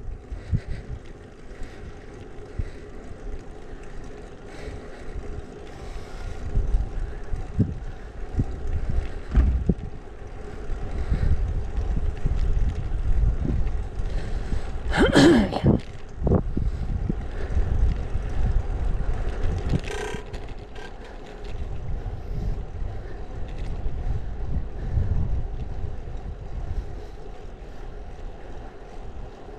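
Wind buffeting an action camera's microphone on a moving road bicycle, a low rumble that swells and eases as the bike rolls along the asphalt. A short, sharp sound about halfway through, and a fainter one a few seconds later.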